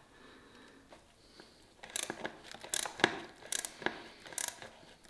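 Hands working hoses and cables around a motorcycle's carburettor bank. From about two seconds in there is a run of short rustling, scraping handling noises.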